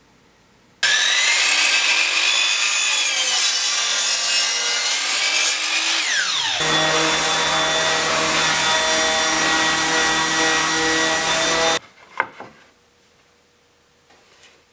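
Random orbital sander running on a wooden board: a loud, steady high whine over a low hum, its pitch dropping about halfway through and then holding steady. It cuts off suddenly near the end, followed by a single knock.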